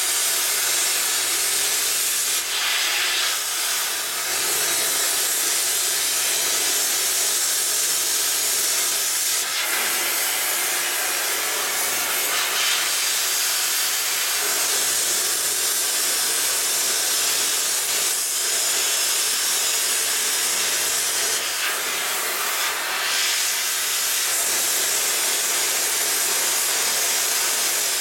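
Cutting torch hissing steadily as it cuts the ends of steam locomotive boiler flue tubes, the hiss shifting briefly a few times.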